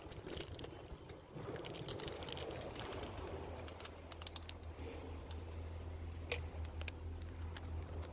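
Irregular light clicks and taps from footsteps and handling while walking over paving and a wooden deck, over a steady low hum.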